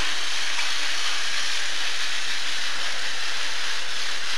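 Battery-powered TOMY toy trains running on plastic track, a steady, even whirring hiss.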